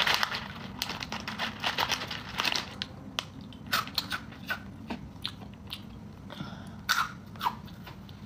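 Crunchy snack being bitten and chewed close to the microphone: irregular crisp crunches, dense for the first few seconds, then sparser.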